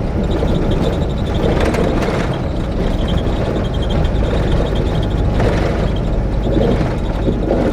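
Iveco Eurocargo truck's diesel engine and road noise heard inside the cab, running steadily while cruising in sixth gear.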